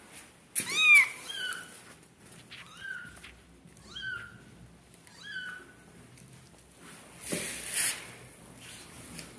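Newborn kittens mewing: a series of thin, high-pitched mews that each rise and then fall in pitch, the loudest about a second in and the later ones fainter. A brief rustle comes about seven seconds in.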